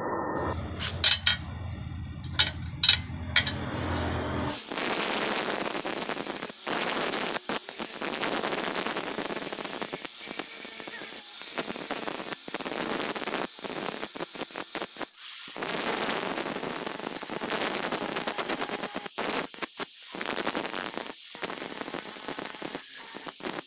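Bosch angle grinder's disc grinding into a steel rod: a harsh, even hiss that starts about four and a half seconds in and runs on with short breaks. It is preceded by a few sharp clicks.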